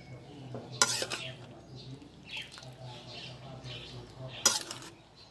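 Metal ladle scooping curry from a pan into a bowl: scraping and slopping, with two sharp clinks about a second in and again near the end.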